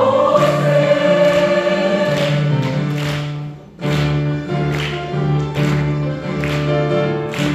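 Choir singing a long held chord over accompaniment. The chord breaks off about three and a half seconds in, and the accompaniment carries on alone with an evenly pulsing bass line.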